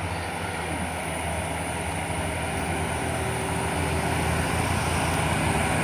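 Diesel bus engine pulling up a steep climb: a steady low drone that grows gradually louder as the bus approaches.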